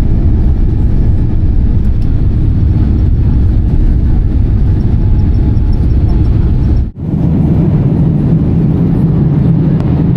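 Airliner cabin noise: a loud, steady low rumble of jet engines and airflow. It drops out sharply for an instant about seven seconds in, then resumes with a slightly stronger low hum.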